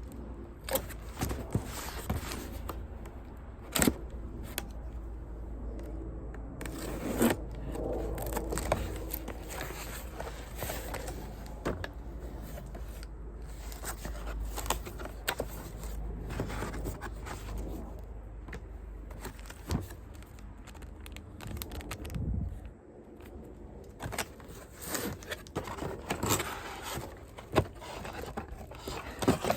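Cardboard and plastic packaging of a humidifier being handled during unboxing: irregular scraping and rustling with many scattered clicks and a few sharper knocks.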